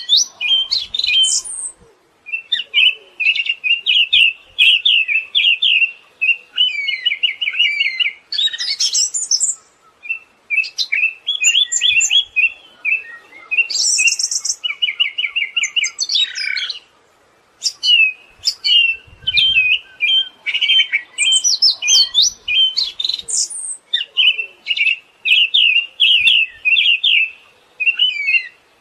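Siberian thrush singing a long run of fast, chattering phrases and rapid trills, with short pauses every several seconds.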